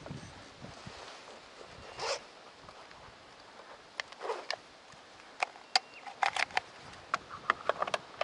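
Gear being handled in a plastic kayak's cockpit: a couple of soft swishes, then a run of sharp, irregular clicks and taps, some in quick clusters, over the second half.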